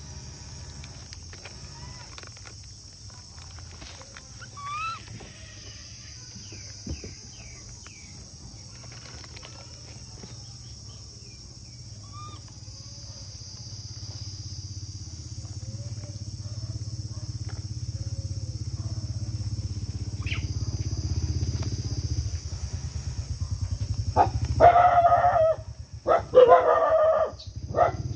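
Outdoor rural ambience with a steady high-pitched hiss and a few faint chirps, and a low rumble that swells through the middle. Loud, repeated animal calls break out on and off near the end.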